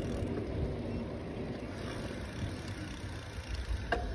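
Steady low rumble of wind on the microphone and tyre noise from a bicycle rolling along asphalt, with a short click near the end.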